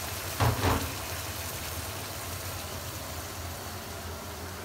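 Pot of red curry with coconut milk simmering on the stove: a steady hiss, with one brief knock or clatter about half a second in.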